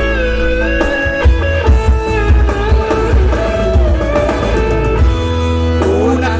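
Live music from an electronic keyboard: a pitched melody line over a heavy, pulsing bass beat.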